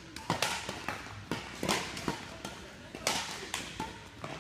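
Badminton rackets striking a shuttlecock in a doubles rally: a quick, irregular string of sharp cracks, with more hits from a neighbouring court mixed in.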